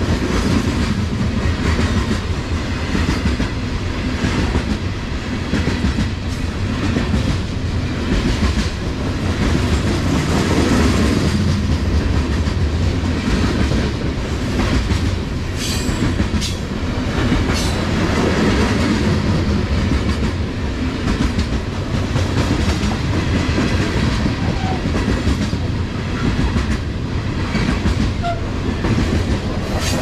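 Loaded coal train's hopper cars rolling past: a steady rumble with wheels clicking over the rail joints, and a few sharper clicks just past the middle.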